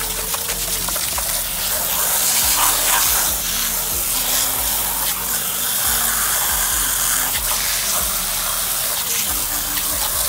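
Garden hose spray nozzle on its jet setting, a steady hiss of water spraying onto a pair of fabric sneakers, swelling and easing slightly as the stream is moved.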